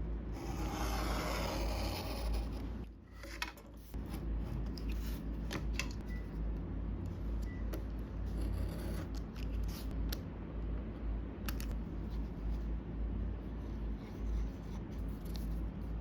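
Hand-crafting noises of miniature-making: a scratchy cutting or rubbing stroke on the base material at the start, then, after a short break, small taps and clicks with another brief scrape about halfway.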